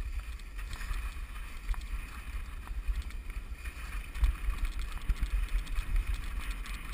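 Wind buffeting the microphone of a camera carried by a descending skier, an uneven low rumble. Under it is the scraping hiss of skis sliding over crusty spring snow, with scattered small clicks.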